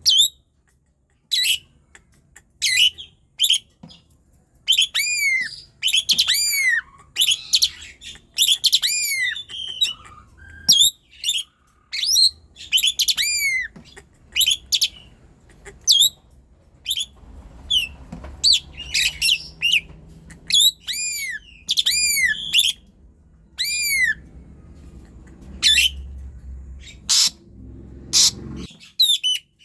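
Asian pied starling (jalak suren) singing loudly and persistently: quick runs of short, loud calls that rise and fall in pitch, with brief pauses between the runs.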